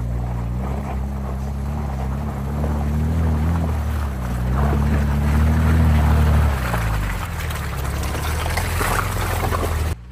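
Volvo C303 four-wheel-drive truck's engine pulling under load as it drives up a muddy trail, its pitch climbing and easing, loudest about two-thirds of the way through, with tyre and trail noise over it. The sound cuts off abruptly near the end.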